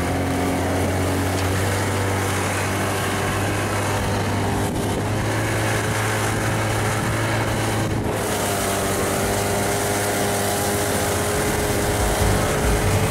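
Snowmobile engine running steadily while riding across snow, its note climbing a little after about eight seconds, with wind rush over it.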